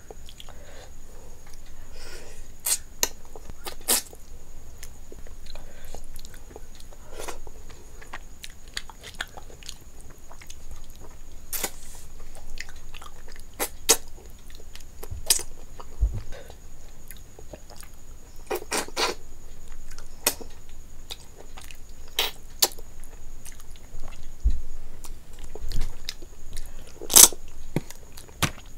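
Close-up eating sounds: rice and curry mixed by hand on a plate and chewed, with scattered sharp clicks.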